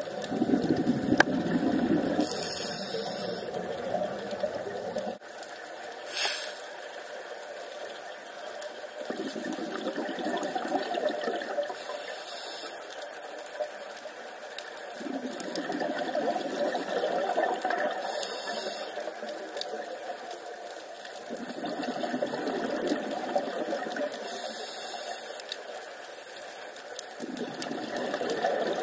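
Scuba diver breathing through a regulator underwater: a short hiss of each inhale, then a burbling rush of exhaled bubbles lasting a few seconds, repeating about every six seconds.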